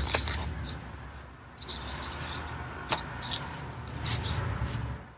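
Pages of a hardcover picture book being turned and handled: several short paper rustles, with one sharp tick about three seconds in.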